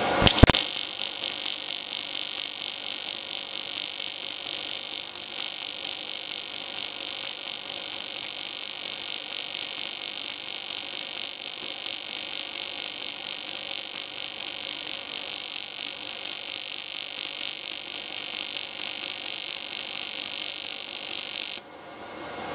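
AC TIG welding arc on aluminium from a Parweld XTT212P inverter, set to 50 Hz AC with a slow low-frequency pulse, giving a steady electrical buzz as the bead is run. The arc starts just after the opening and cuts off suddenly about a second before the end.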